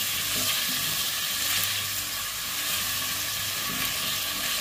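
Diced onion, carrot and green peas sizzling in oil in a nonstick pot, with a steady hiss as a silicone spatula stirs them.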